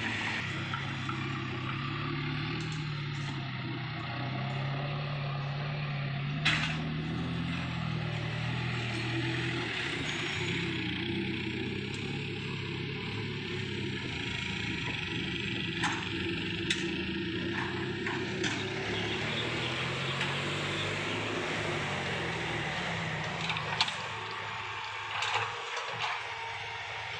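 Heavy diesel engines of a hydraulic excavator and a dump truck running at work, engine speed rising and falling with the load. Occasional sharp knocks and clanks of debris and metal.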